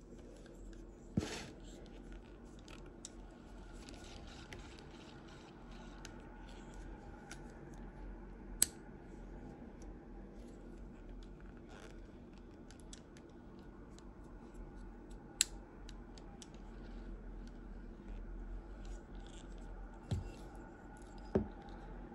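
Shimano Twin Power 4000 FS spinning reel being handled and worked by hand: a faint, fine mechanical ticking and scraping, with about five sharp clicks scattered through it.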